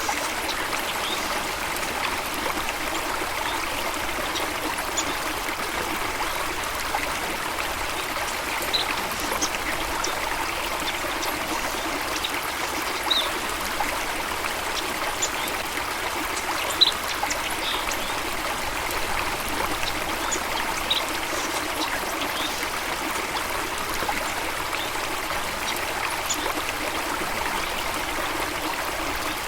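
Running water flowing and trickling steadily, with short high bird chirps scattered every few seconds.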